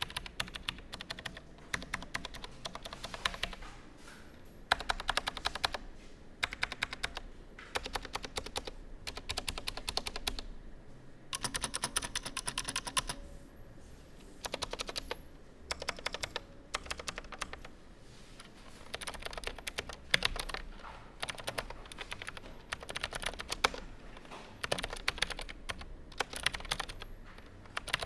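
AZIO Classic mechanical keyboard being typed on: rapid keystroke clicks in runs of a few seconds, with short pauses between the runs.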